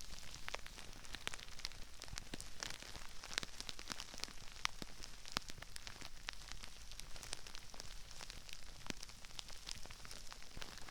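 Crispy rice crackling all around a binaural microphone: a dense, irregular stream of tiny sharp pops and crinkles, mostly high-pitched, with a few louder snaps standing out.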